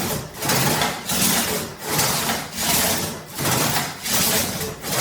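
Antique British one-man crosscut saw with a waxed blade cutting through partially dried apple wood by hand. It makes a steady rhythm of rasping back-and-forth strokes, about one stroke every three-quarters of a second.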